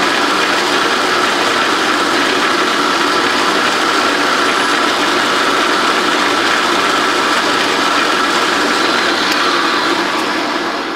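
Drill press running steadily with a high-speed steel drill bit pressed against a hard cast-iron casting. The bit fails to cut the iron. Near the end the motor winds down.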